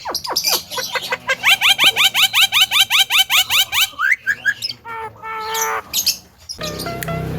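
Javan myna (jalak kebo) calling: a fast run of rising, sweeping chirps at about six a second, then whistled glides and harsher squawky notes. Near the end a steadier pitched sound takes over.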